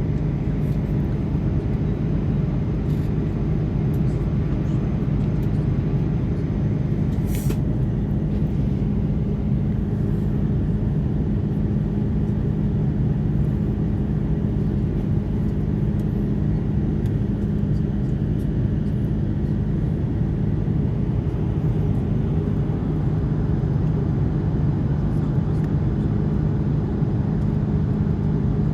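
Steady cabin drone of an Airbus A330-200 airliner heard from a window seat: engine and airflow noise with a constant low hum. A few faint clicks, the sharpest about seven seconds in.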